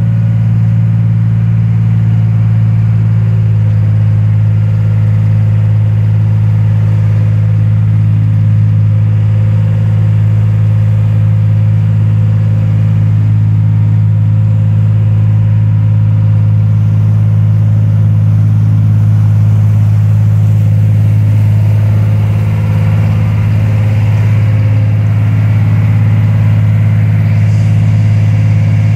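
Boat motor running at a steady speed, a loud, even low drone that holds the same pitch throughout.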